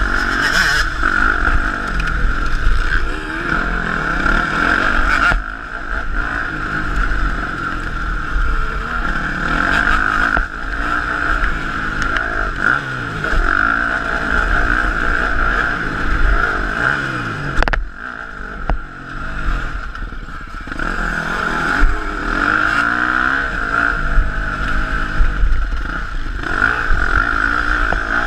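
KTM 250 SX-F four-stroke single-cylinder motocross engine heard from the bike itself, revving up and down repeatedly as it is ridden hard, with wind rumble on the microphone. About two-thirds of the way through there is a sharp knock, and the engine note drops away for a couple of seconds before it picks up again.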